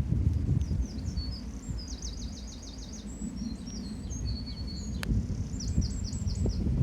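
A small songbird singing rapid phrases of high chirps and trills, over a low wind rumble on the microphone. There is a single sharp click about five seconds in.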